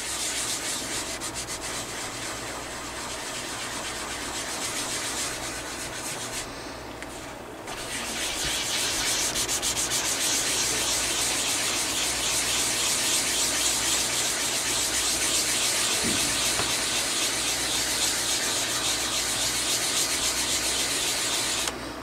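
Cloth rubbed quickly back and forth over the plastic underside of a laptop case, scrubbing off a sticky residue. After a short lull about six seconds in, the scrubbing comes back louder and runs on until it stops abruptly just before the end.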